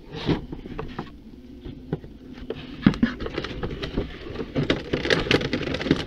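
Thin clear plastic packaging on a toy box crinkling and crackling as the box is handled, in scattered small clicks that grow busier near the end.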